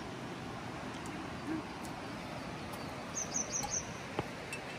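Steady rush of a river flowing past, with a small bird giving a quick run of four high chirps a little over three seconds in.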